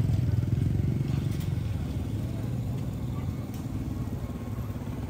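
A small engine running, a low even drone that gradually fades.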